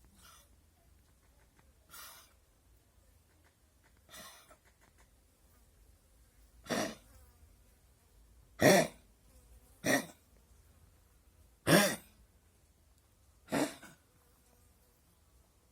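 Dog coughing: about eight short single coughs, roughly two seconds apart. The first three are faint and the later ones much louder.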